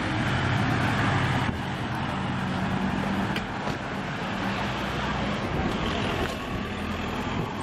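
A car driving past close by, its tyre and engine noise loudest in the first second and a half, then easing as it moves away.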